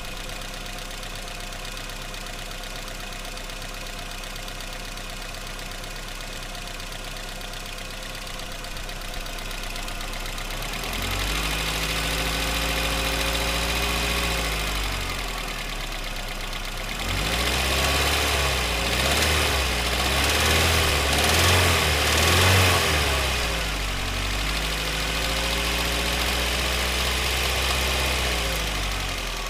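Car engine idling, then revved up and held three times, with the lifter noise of worn or noisy valve lifters.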